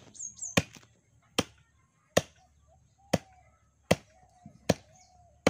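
Heavy cleaver chopping raw goat meat against a wooden block, about seven sharp, evenly paced strokes, a little more than one a second.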